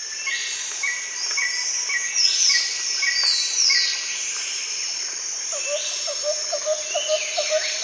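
Birdsong: several birds calling at once, with repeated high chirps and falling whistles over a steady background hiss. From about five and a half seconds a lower short note repeats about three to four times a second.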